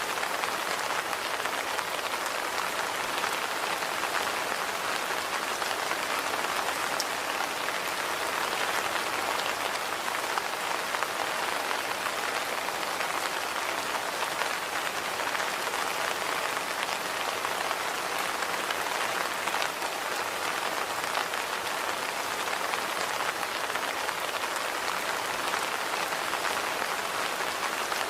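Steady rain falling on surfaces, an even hiss dotted with many small drop ticks.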